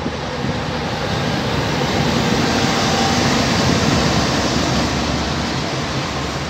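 Diesel locomotive passing close by with its engine running, followed by the rolling rumble of loaded double-stack container wagons; loudest two to four seconds in as the locomotive goes by.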